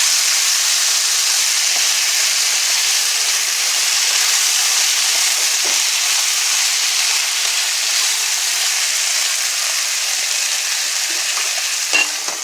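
Chicken, vegetables and sauce sizzling steadily in a hot stir-fry pan. A brief clack near the end.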